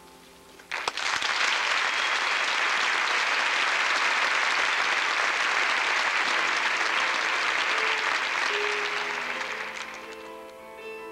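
Concert audience applauding: the clapping starts suddenly about a second in, holds dense and steady, and fades near the end as soft instrumental notes begin the next piece.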